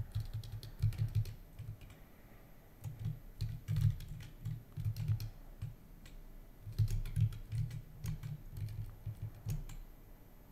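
Typing on a computer keyboard in three short bursts of keystrokes, with brief pauses between them.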